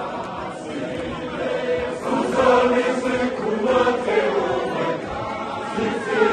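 Large congregation singing and chanting together, many voices sustaining a tune, swelling louder about two and a half seconds in and again around four seconds.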